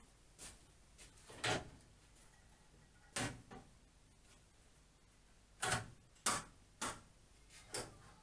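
Metal clunks and clicks from the cast tables and fittings of a Holzmann 305 PRO jointer-planer being handled while the machine is switched off: about seven sharp, irregular knocks, the loudest two near the middle, as the jointer table is lifted and set back down.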